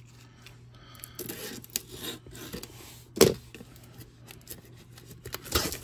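A shrink-wrapped metal trading-card tin being handled and turned over: the plastic wrap rustles and scrapes against the tin, with one sharp tap about three seconds in and a few more clicks near the end.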